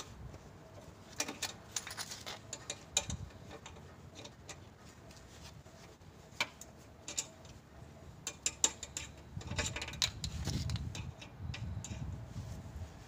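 Scissor jack being cranked by hand under a car: irregular small metal clicks and clinks from the crank rod and jack, in two clusters, with a low scraping rumble near the end.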